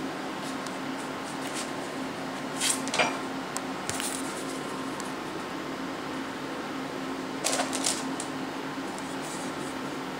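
Wooden reed-block parts and a flat plate being handled, set down and slid into place on a hydraulic press bed: a few short knocks and scrapes about three seconds in, once more a second later, and again near eight seconds, over a steady hum.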